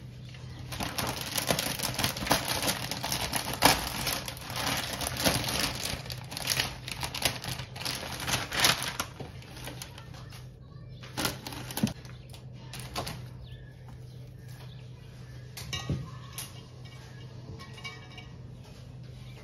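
Clear plastic bouquet wrapping crinkling and rustling as a bunch of flowers is pulled out of it, dense and crackly for several seconds. After that come a few separate sharp knocks as the stems are handled and put into a glass vase, over a steady low hum.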